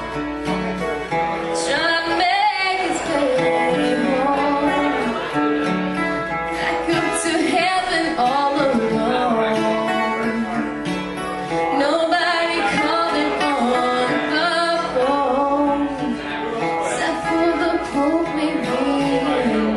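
A woman singing a slow song into a microphone, accompanied by a strummed acoustic guitar, played live through a small PA.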